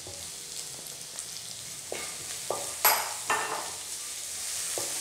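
Garlic-ginger paste, curry leaves and pandan leaves sizzling in hot oil in a non-stick pan. From about two seconds in, a wooden spatula stirs and scrapes them in a few short strokes, the loudest about three seconds in.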